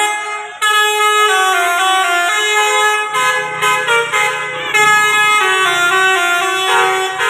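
A bus's basuri 'telolet' musical air horn plays a tune in quick stepped notes. A low steady hum from the bus comes in underneath about three seconds in.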